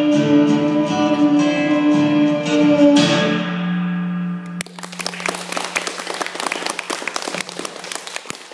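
Acoustic guitar playing the last bars of a song, ending on a final strummed chord that rings out and fades. About halfway through, audience applause starts and carries on.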